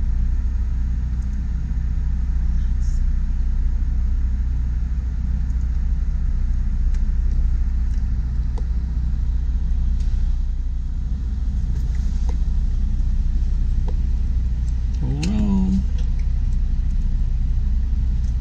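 Steady low rumble of a moving vehicle, with a short rising pitched sound near the end.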